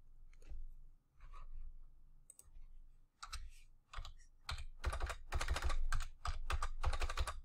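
Typing on a computer keyboard, entering numbers: a few faint scattered clicks at first, then a quick run of keystrokes from about three seconds in.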